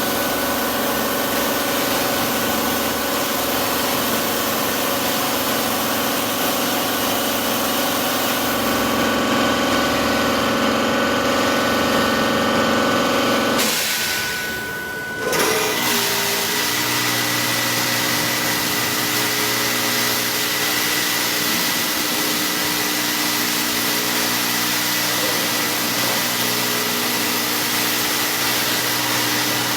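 Steady machine hum with several steady tones running through it. About halfway through it dips briefly and gives way to a different steady machine hum.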